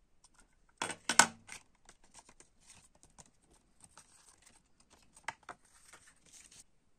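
Handling noise: a short cluster of sharp knocks and clicks about a second in, then the paper fold-out inlay card of a cassette crinkling and rustling as it is unfolded, with one sharper crackle near the end.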